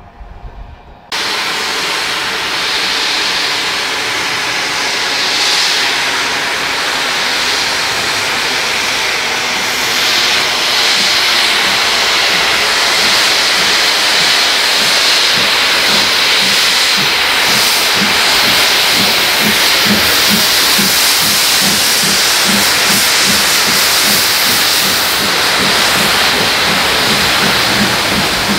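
Steam locomotive hissing steam loudly, starting abruptly about a second in. From about halfway through, a regular beat of two to three pulses a second sounds under the hiss.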